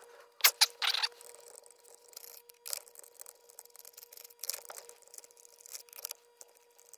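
Hand-tool work on a chainsaw as its screws are taken out: short sharp clicks and scrapes of the driver and parts against the housing, a few at a time with pauses of a second or more, the loudest in the first second.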